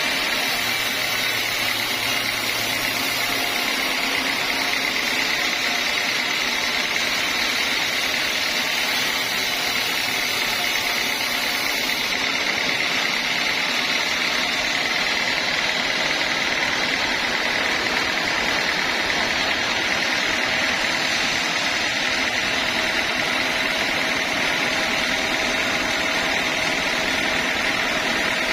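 Band sawmill machinery running steadily, a constant mechanical drone with a high, even whine.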